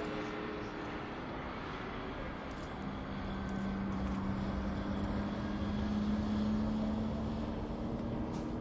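Jet noise of an Airbus A380's four turbofan engines during a low display manoeuvre: a steady roar with humming tones in it, swelling louder from about three seconds in.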